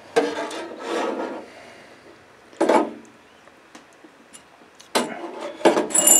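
Stainless-steel wire basket of an ultrasonic cleaner scraping and rattling against the metal tank as it is lifted out of the cleaning solution, in a few separate bursts with short pauses between.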